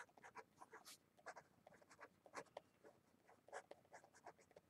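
Felt-tip marker writing on paper: faint, short, irregular strokes as a line of words is written.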